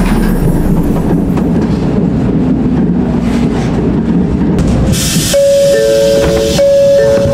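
N700-series Shinkansen train rumbling as it slows to a stop along the platform. About five seconds in there is a sudden hiss of air, then the two-tone door chime repeats as the door opens.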